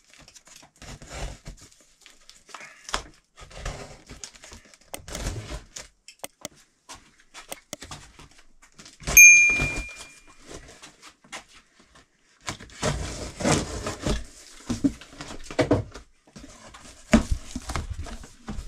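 Large cardboard box being handled and opened: scraping, crinkling and tearing of tape and card, with knocks as the flaps are worked open. About nine seconds in comes a single bright bell-like ding, the loudest sound, from an on-screen subscribe-button animation.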